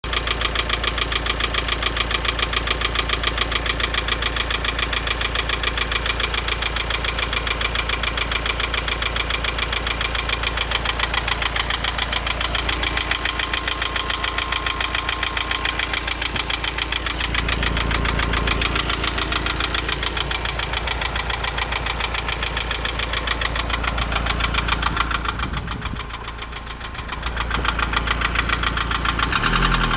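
Renault Laguna 2.0 dCi four-cylinder diesel engine running with a fast, continuous knocking. It goes briefly quieter a few seconds before the end.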